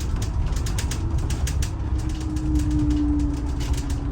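Detroit Diesel 6-71 two-stroke inline-six running flat out on the governor under heavy load, with a rapid, even clatter over a steady rumble and a steady whine coming in about halfway through. The engine is down on power, struggling on a climb; it has weak compression and a dirty Roots blower.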